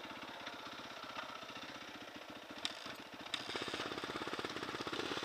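Small vehicle engine idling with an even pulse, growing a little louder about three and a half seconds in, with a couple of sharp clicks just before.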